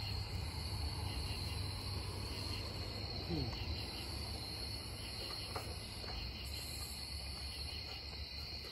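Crickets trilling in a steady, unbroken night chorus over a low steady rumble.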